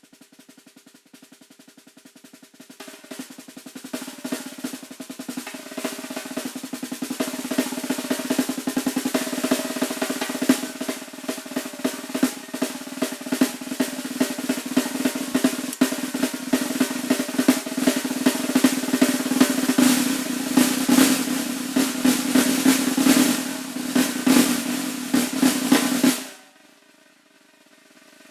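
Snare drum played solo in a long roll with accented strokes, starting soft and building up over the first several seconds. It stops abruptly about 26 seconds in, the drum's ring fades for a moment, and the roll starts again at the very end.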